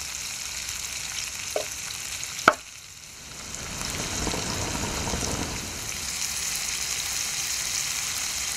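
Pieces of rainbow trout frying in hot oil in a frying pan, sizzling steadily. There are two short clicks, the louder about two and a half seconds in.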